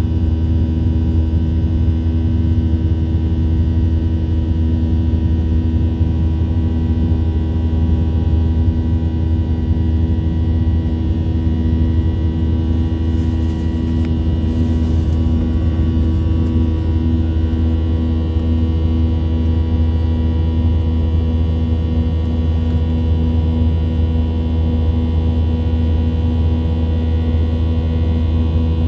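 Cabin noise of a Boeing 737-800 climbing out after takeoff, heard from a window seat beside its wing-mounted CFM56-7B engine: a steady, loud low drone with a hum of several steady tones above it.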